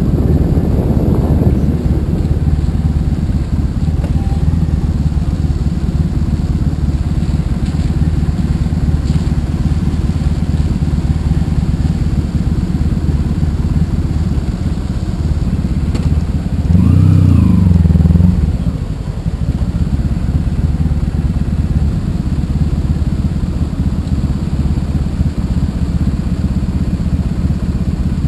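Honda ST1100 Pan European's V4 engine running at low speed, with road and wind noise. About seventeen seconds in the engine note rises sharply for about a second and falls back.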